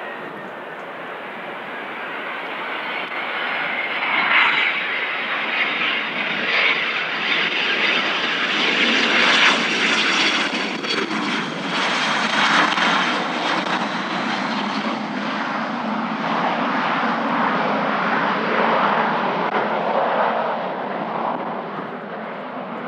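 Cessna Citation XLS business jet's twin turbofan engines passing close by: jet noise builds to a peak about ten seconds in, then slowly fades, with a high engine whine over it.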